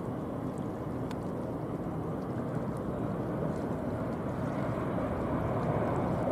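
Distant jet engines of a Boeing 777-300ER on the runway: a steady low rush of engine noise, growing slightly louder near the end.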